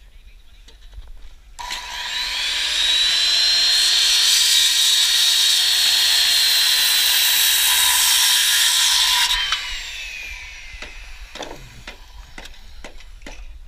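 A power tool's electric motor starts about a second and a half in, rising in pitch as it spins up. It runs steadily for about seven seconds, then cuts off and winds down. Scattered light clicks and knocks follow.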